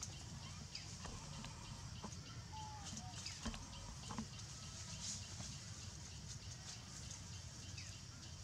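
Faint forest-floor ambience: a steady low rumble and a high hiss, with scattered light clicks and a few short high animal chirps, the clearest about two and a half seconds in.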